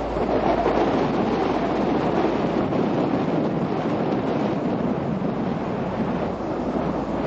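Steady wind noise on the microphone over the low rumble of a tour boat's engine and water.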